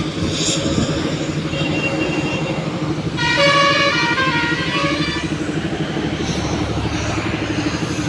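A vehicle horn sounds for about two seconds near the middle, its pitch shifting in steps, over the steady rumble of heavy truck engines and highway traffic.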